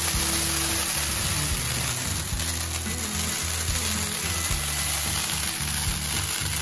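Ground spark-fountain firework (a Diwali flowerpot) hissing steadily as it sprays sparks, with music underneath.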